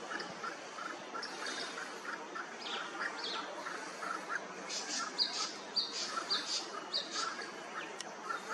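Birds calling in forest: a steady run of short chirps, joined about halfway through by a series of short, sharp, high chirps roughly twice a second, over a constant hiss of background noise.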